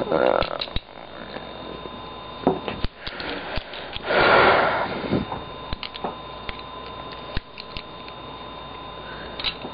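Plastic pieces of a 3x3 Rubik's cube clicking and tapping now and then as they are handled, with a loud breath about four seconds in and a shorter one at the start.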